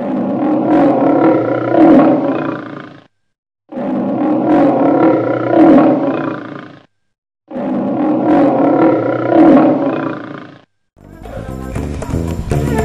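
Lion roar sound effect played three times, each about three seconds long and identical, with a short silence between them. Background music starts up again near the end.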